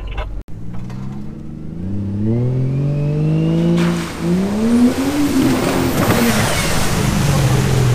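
Turbocharged Ford Barra straight-six in a Nissan GU Patrol revving as the four-wheel drive drives through muddy puddles, its pitch climbing, dipping about four seconds in, then climbing again. From the dip on, mud and water thrown by the tyres hiss and splash over the engine.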